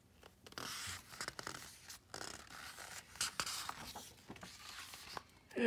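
Paper pages of a hardcover picture book rustling and scraping as a page is turned by hand, with a few light clicks from the paper.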